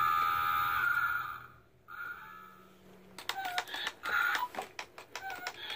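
A held electronic tone lasting about a second and a half, a shorter one about two seconds in, then sharp clicks and handling of a toy in its plastic box with faint voice-like sounds.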